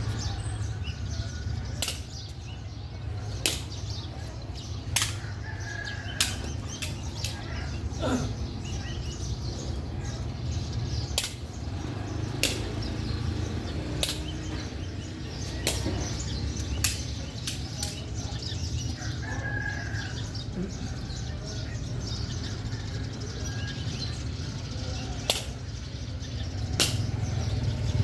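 Sharp hits repeating irregularly about once every second or so, as of something being struck in play, over a steady low rumble.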